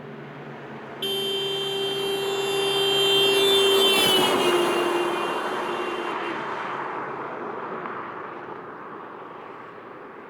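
Car driving past at about 40 miles an hour with its horn held down. The horn sounds from about a second in, drops clearly in pitch as the car goes by about four seconds in, which is the Doppler effect, and stops about six seconds in. The car's road noise swells as it approaches and fades away as it leaves.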